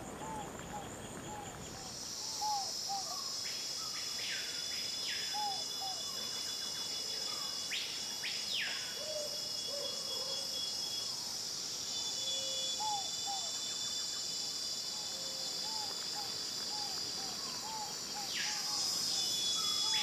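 A steady, high-pitched insect chorus comes in about two seconds in and carries on, with many short bird chirps and a few quick downward-sliding whistled calls over it.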